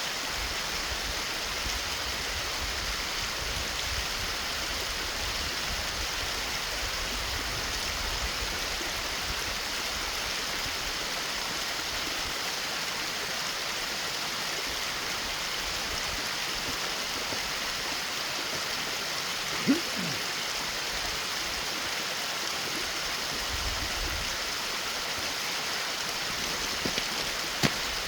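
Mountain creek water rushing steadily over rocks, an even, unbroken roar. There is one short knock about two-thirds of the way through.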